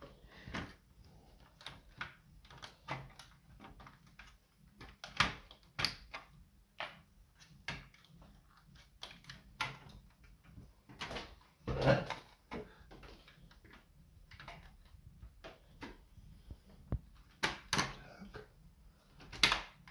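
Irregular clicks, taps and knocks of the Sony TC-KE400S cassette deck's plastic and sheet-metal parts being handled as its chassis is fitted back into the case, with a louder knock about twelve seconds in and another near the end.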